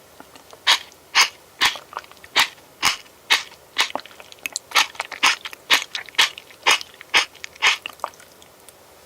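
Close-miked mouth sounds of eating: a run of about fifteen short, sharp bites or crunches, roughly two a second, stopping about a second before the end.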